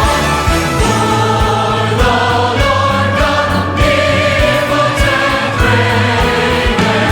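Large choir singing with an orchestra in a Christmas medley, over a steady beat of about two strokes a second.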